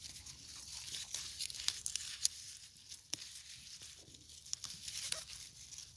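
Chrysanthemum leaves rustling, with irregular small crackles and snaps as a hand pulls weeds and strips off lower leaves in a potted plant.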